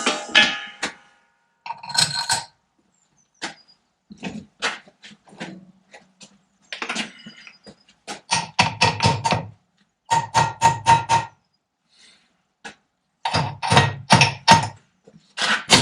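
Hammer blows on metal: a few separate knocks, then from about eight seconds in quick runs of about five strikes each, with a metallic ring. An interference-fit bushing, heated red hot, is being driven down onto its shaft and is not seating.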